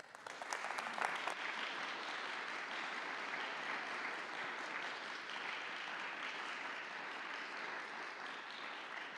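An audience applauding: a few sharp claps at the start, then steady, even clapping.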